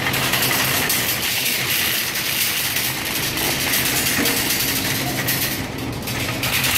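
Wire shopping cart being pushed across a smooth store floor, its wheels rolling and its metal basket rattling steadily.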